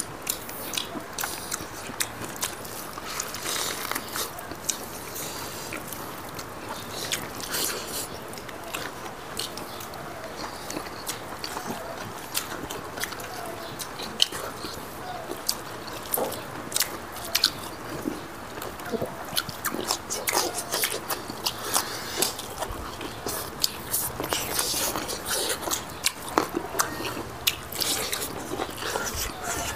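Several people eating chicken and rice by hand: chewing and biting, with frequent short clicking and smacking mouth sounds that grow busier in the second half.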